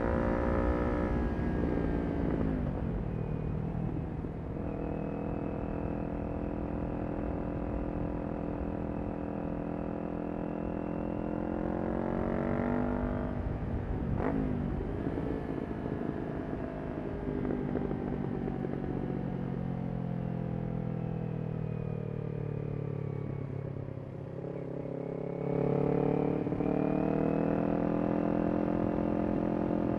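Kawasaki Ninja 400's parallel-twin engine through a Yoshimura exhaust, revs climbing and dropping repeatedly as the bike is ridden through the gears, with one sharp crack near the middle.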